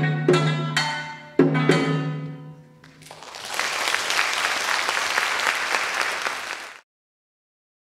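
Closing notes of a shamisen piece: a few sharp plucked strokes that ring out and fade over about three seconds. An audience then applauds for about three and a half seconds, and the sound cuts off abruptly.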